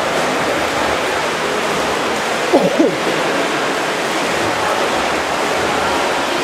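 Steady wash of splashing water from water polo players swimming in an indoor pool, echoing in the hall. A brief falling-pitched sound cuts through about two and a half seconds in.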